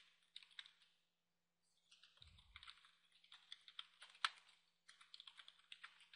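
Faint computer keyboard typing: quick runs of keystrokes, with a short pause about a second in, then steady typing again, one keystroke a little past the middle louder than the rest.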